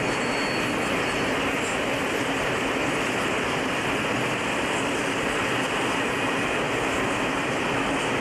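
Freight train of tank wagons rolling past at steady speed, the wheels on the rails making a constant, even rolling noise.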